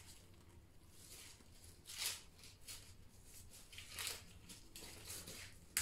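Faint rustling and crackling of dry corn husks being peeled back from a cob, in a few short brushes, the clearest about two seconds and four seconds in.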